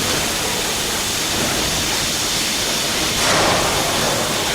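Steady hiss of machine noise, swelling briefly about three seconds in.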